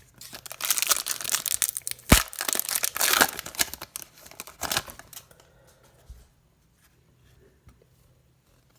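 Plastic wrapper of a trading card pack being torn open and crinkled for about five seconds, with one sharp snap about two seconds in.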